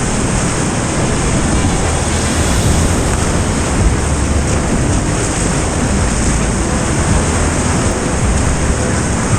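Rushing whitewater of a mountain river, a loud steady roar of water, with wind buffeting the microphone.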